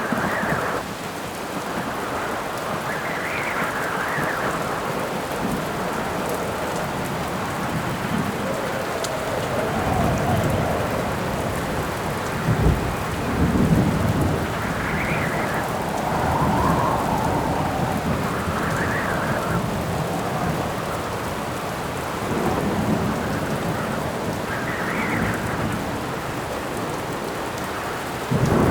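Steady heavy rain with wind gusts howling in swells every few seconds, and low rolls of thunder rumbling around the middle.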